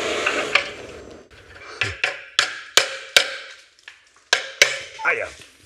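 A torch's steady hiss stops about half a second in, followed by a string of sharp metal knocks, about eight of them spaced irregularly, as the heated, rusted exhaust flange bolt is tapped and worked.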